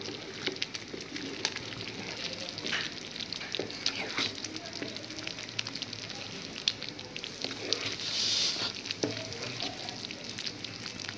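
Spatula stirring a thick, simmering spinach gravy with corn and paneer in a pan: wet bubbling and sizzling with scattered clicks of the spatula against the pan, and a short louder hiss about eight seconds in.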